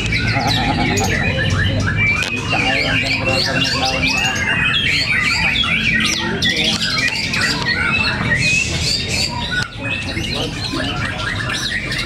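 Several caged white-rumped shamas singing at once in a song contest: a dense, unbroken jumble of overlapping whistles, chirps and quick rising and falling notes.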